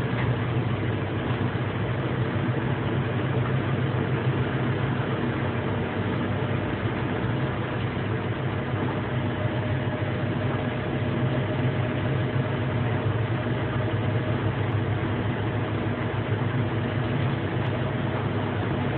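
Steady running noise of a Swiss Federal Railways (SBB) train, heard from the driver's cab: an even low rumble with a faint steady tone above it.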